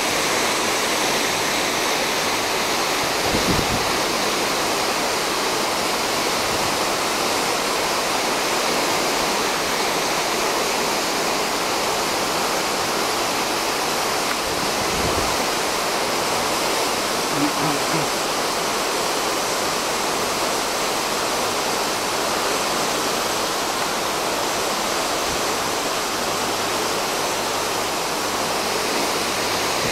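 Steady rushing hiss of the open sea churning past the cruise ship, mixed with wind, with a couple of soft low bumps.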